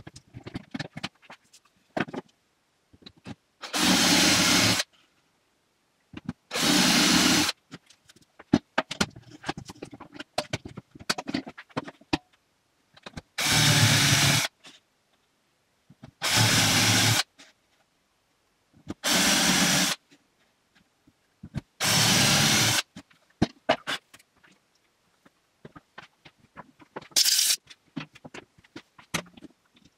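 Cordless drill boring dowel holes into a spruce board through a wooden guide block, running in six short bursts of about a second each. Small clicks and knocks of handling the drill and guide come between the bursts.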